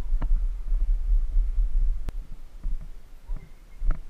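Low rumbling noise on a vehicle-mounted camera's microphone while riding an electric Trikke, with a few sharp knocks from the mount over bumps; it eases off near the end as the ride slows to a stop.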